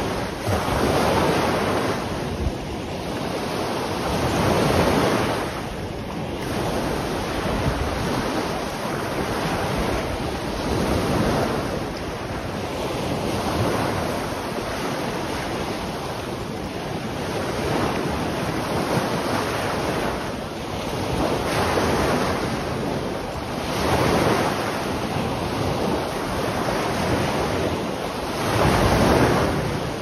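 Small waves breaking and washing up a sandy shore, the surf rising and falling every few seconds, with wind on the microphone.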